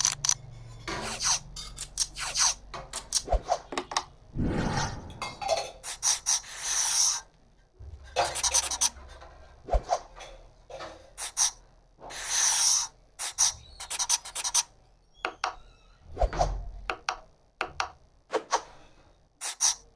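Woodworking tool scraping and rubbing on wood in many short, irregular strokes, with a few low thumps between them.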